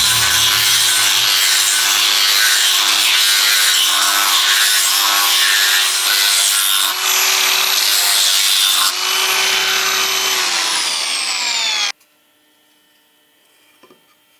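Power tool sanding carved wood: a loud rubbing hiss over a steady motor whine. It stops abruptly about twelve seconds in, leaving near silence.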